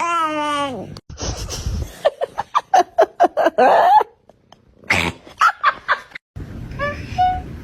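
Several short cat-sound clips cut together: a long meow falling in pitch, then a run of quick laugh-like bursts, then short calls near the end, with abrupt cuts between them.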